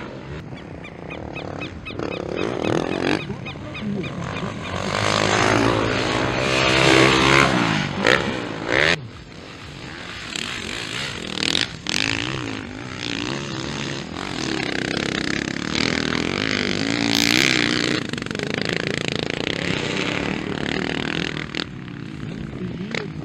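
Motocross dirt bikes racing past, their engines revving up hard and falling off again and again as the riders accelerate, shift and back off over the track. The loudest stretch comes about a third of the way in.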